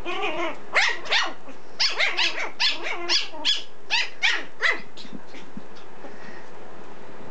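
Pomeranian puppy yapping in play: about a dozen short, high-pitched barks in quick succession, stopping about five seconds in.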